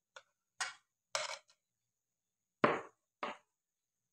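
A spoon scraping cake batter out of a glass mixing bowl and knocking against it: five short scrapes and knocks, the loudest about two and a half seconds in.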